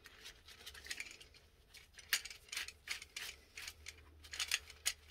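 Faint, irregular plastic clicks and rattles from a Fluidmaster universal toilet flush handle as its plastic lever arm is turned and adjusted by hand. The clicks come more often from about two seconds in.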